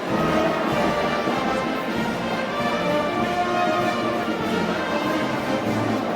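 Wind band music led by brass, playing continuously with sustained notes.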